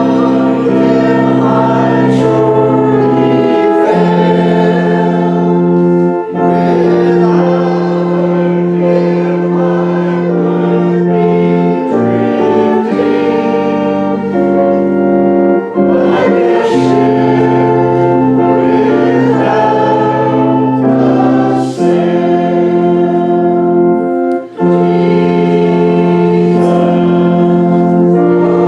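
A congregation singing a hymn together with organ accompaniment, in slow held chords that change every second or two.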